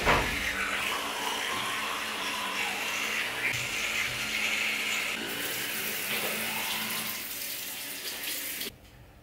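Bathroom tap running steadily into a sink, turned off suddenly near the end.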